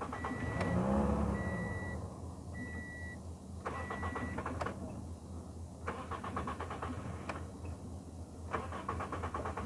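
Toyota Yaris engine being started: a brief low run that rises and falls in the first couple of seconds, then several bursts of rapid clicking from repeated start attempts. A warning chime beeps four times over the first four seconds. The engine starts but shuts off again.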